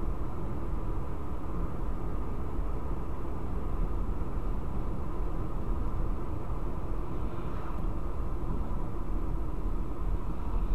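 Steady road and engine noise of a car driving at a constant speed, an even low rumble heard from inside the cabin.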